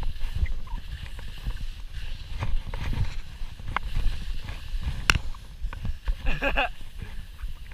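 Skis running through soft, tracked powder snow, with a steady low rumble of wind on the camera microphone and scattered sharp knocks and clicks as the skis bump over the ruts and the poles are planted.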